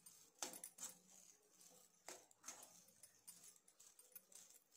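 Faint scraping and knocking of a metal spoon against a nonstick kadai while stirring and mashing a potato mixture, in quick irregular strokes about twice a second.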